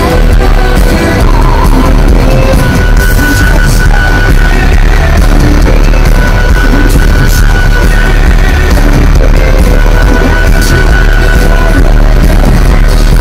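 A rock band playing live with drums, bass guitar and electric guitar, very loud and dense without a break, as heard from the crowd in an arena. A high note is held through much of the middle.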